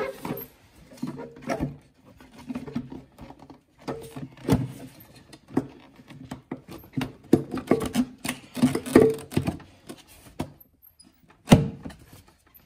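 Plastic engine air filter housing being handled and snapped back into place: an irregular string of knocks, clicks and rattles, the sharpest knock about eleven and a half seconds in.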